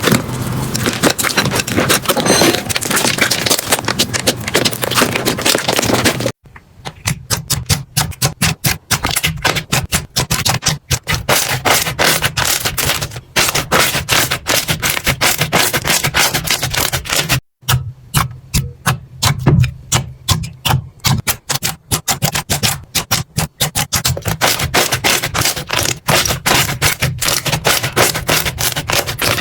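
Slime being squeezed, poked and stretched by hand, making dense rapid crackling and popping clicks. It breaks off abruptly about 6 seconds in and again about 17 seconds in.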